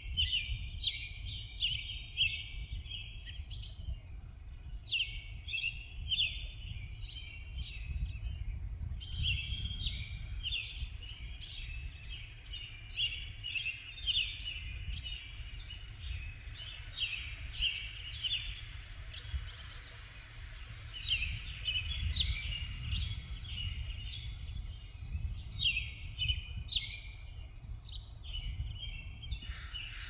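Several songbirds chirping and singing in a dense run of short chirps, with higher calls breaking in every few seconds, over a low steady rumble.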